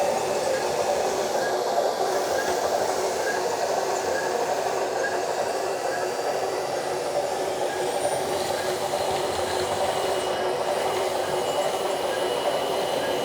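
Simulated excavator engine and track-travel sound played through the RC excavator's add-on sound module speaker: a steady, even drone with a faint regular ticking.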